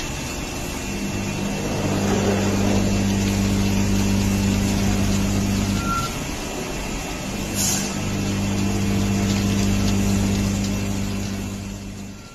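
Spiral bevel gear cutting machine running while its cutter head cuts the teeth of a steel bevel gear: a steady mechanical hum with a hiss of cutting noise. About six seconds in, a short high beep sounds and the hum breaks off for a second or so, with a sharp click, then resumes. The sound fades away near the end.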